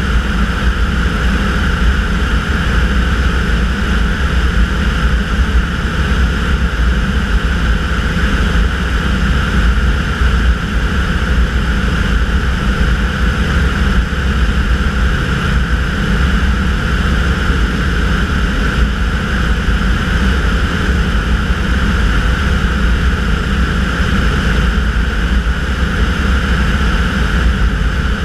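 Tanarg air trike's engine and pusher propeller running steadily in cruise flight.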